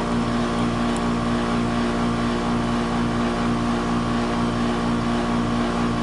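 A 20-year-old Bryant air-conditioning condensing unit running: the compressor and outdoor fan make a steady, even hum with a rush of air, unchanging throughout.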